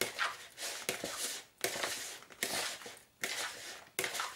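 Hands tossing chopped oranges and olives, dressed with olive oil, in a plastic bowl: a run of about six rustling, squishing strokes.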